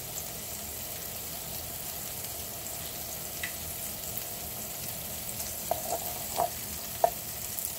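Meatballs sizzling steadily as they brown in a nonstick frying pan. Near the end come a few short clicks of metal tongs against the pan and meatballs.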